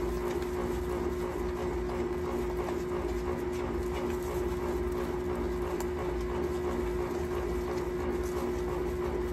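A steady hum, with faint scraping and tapping of a plastic spatula stirring bleaching powder and oxidizer paste in a plastic tub.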